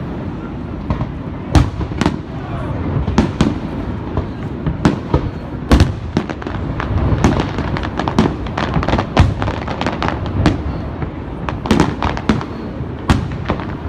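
Fireworks going off: a quick, irregular string of sharp bangs and cracks, several a second at times, over constant background noise.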